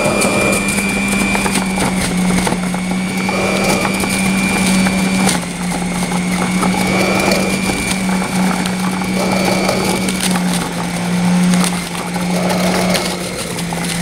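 Electric centrifugal juicer running with a steady motor hum and faint whine while beetroot, carrot and celery are pushed down its feed chute, the spinning blade grinding them with a rough crunching noise that swells every two to three seconds.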